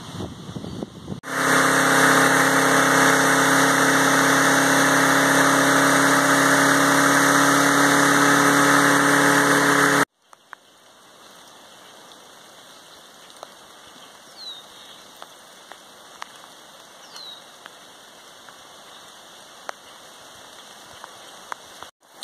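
A lawn mower engine running steadily for about nine seconds, then cut off abruptly. After it, a much quieter hiss of wind in the trees as a storm moves in, with scattered light ticks and two short falling bird chirps.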